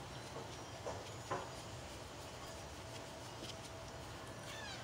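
Young kittens giving a few faint, short squeaks over a steady low background hum, with one brief falling call near the end.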